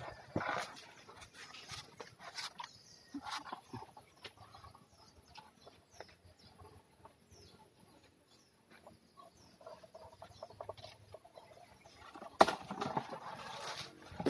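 Rambutan tree branches and leaves rustling and knocking as a long picking pole pokes into the canopy, with scattered clicks and a few faint bird calls in between. A louder stretch of rustling comes near the end.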